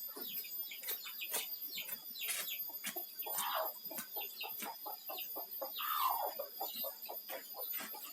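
Chickens clucking, with two longer falling calls about three and a half and six seconds in.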